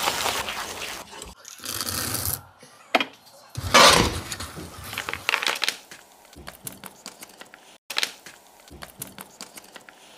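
Wooden spatula scraping and stirring thick, sticky peanut-chikki mixture in a nonstick pan, then baking paper rustling and crinkling in scattered sharp clicks as the hot mixture is tipped onto it and handled, with a loud rustle about four seconds in.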